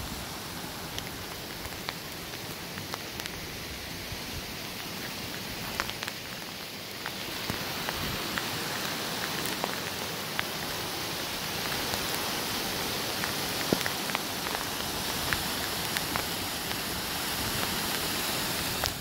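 Light hail shower: small hailstones tick sharply and irregularly on rocks, branches and gear over a steady rushing hiss. The hiss grows louder about seven seconds in, along with the rush of a nearby whitewater mountain creek.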